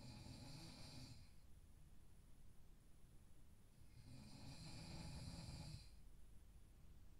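A person snoring faintly in their sleep: one snore ends about a second in, and another follows from about four to six seconds, each a low rumble with a breathy hiss.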